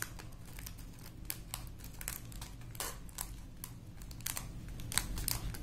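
Scattered light clicks and plastic crinkling as tiny resin diamond-painting drills are slid off a plastic tray back into a small plastic bag.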